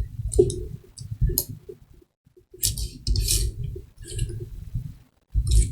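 Irregular computer mouse clicking with low rumbling handling noise between the clicks.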